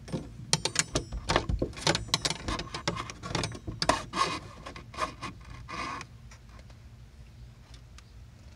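Marine bungee cord and its pulling line being tugged through a hole in a fiberglass boat's under-gunwale rod holder: a quick run of short rubbing and scraping strokes that stops about six seconds in, leaving a faint low hum.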